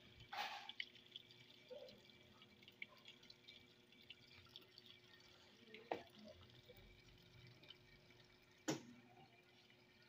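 Whirlpool top-load washing machine filling at the start of its cycle: a faint steady pour of water from the dispenser onto the load, with three brief sharp sounds, about half a second in, about six seconds in and near the end.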